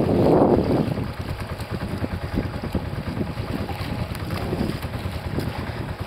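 Wind buffeting the microphone over water rushing and slapping against the hull of a small boat under way on open sea. It swells louder for about a second at the start.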